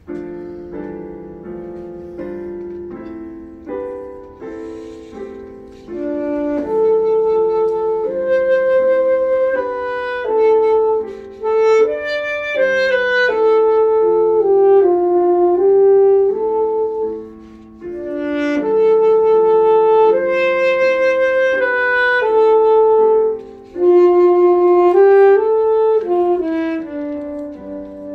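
Alto saxophone playing a slow melody of held, connected notes, with piano accompaniment beneath it. The line breaks off briefly twice, about two-thirds of the way through and again a few seconds later.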